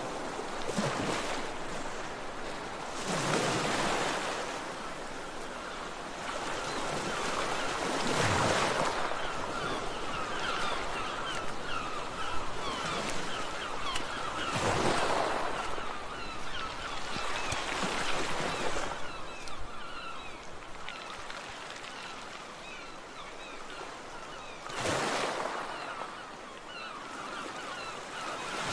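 Sea waves breaking on a beach, a fresh surge swelling and washing out every few seconds.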